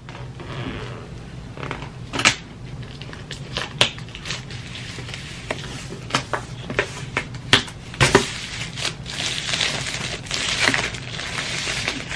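Clear plastic shrink-wrap crinkling and crackling as it is peeled off a laptop box. Scattered sharp crackles become denser, louder rustling from about eight seconds in.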